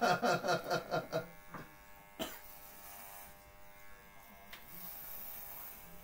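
Corded electric hair clippers buzzing steadily as they cut through a man's hair. A louder run of rapid rhythmic pulses fills the first second, and a couple of faint clicks come later.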